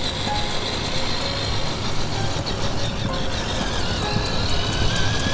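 Simulated truck engine sound played from an RC truck's onboard Sony SRS-XB10 Bluetooth speakers as the truck drives on pavement: a steady low rumble with a high whine over it.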